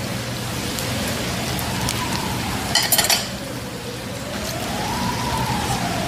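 Steady sizzling hiss of pork belly cooking on a grill, with a siren slowly wailing up and down behind it. A brief clatter about three seconds in.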